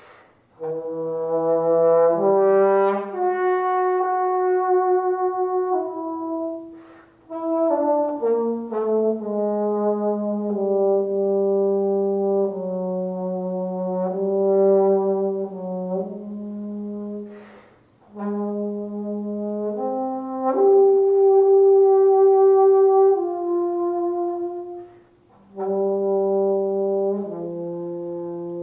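Solo trombone playing unaccompanied: a melodic line of held notes, with brief breaks for breath about 7, 18 and 25 seconds in.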